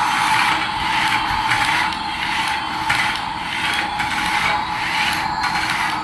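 A remote-control toy running: a steady whirring hiss with a faint steady tone, swelling and dipping slightly.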